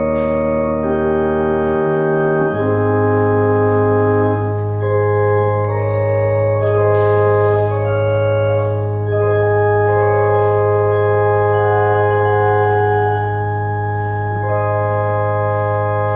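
Church organ playing slow, sustained chords, the chords changing every second or two over a deep bass note that is held from a couple of seconds in.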